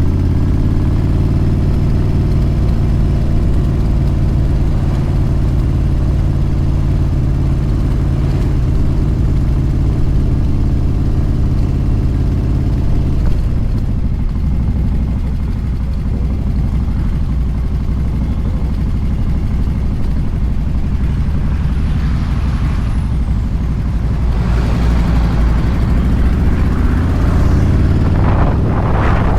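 Motorcycle engine running steadily at highway speed, with wind rushing past. The engine note drops about halfway through, and the wind noise grows louder near the end.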